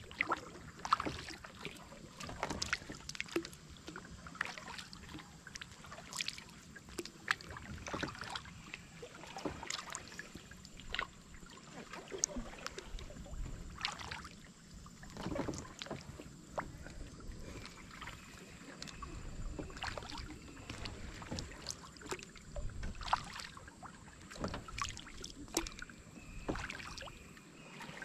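Paddle strokes in calm water from a small paddled boat, with irregular small splashes and drips as the blade dips in and comes out.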